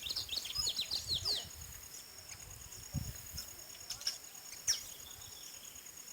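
Wild birds chirping in a quick run of short notes about a second in, over a steady, high-pitched insect trill. A couple of sharp clicks come later.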